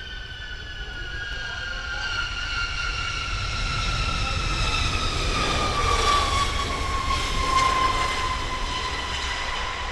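Boeing B-52H Stratofortress's eight turbofan engines whining and rumbling as the bomber lands and rolls past. A high whine falls steadily in pitch over a low rumble, and the noise swells to its loudest after about six seconds, then eases a little.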